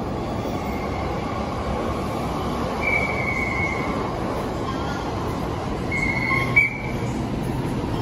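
Train wheels squealing on the rails: a high squeal comes and goes three times over a steady street hubbub, with a sharp knock near the end.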